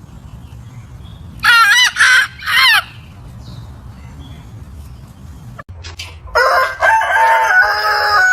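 Aseel roosters crowing: one loud crow in three parts about a second and a half in, then from about six seconds several roosters crowing at once at different pitches, in long held calls.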